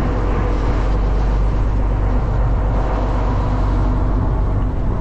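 Boat engine running at a steady pace, a constant low drone under a rush of wind and water noise.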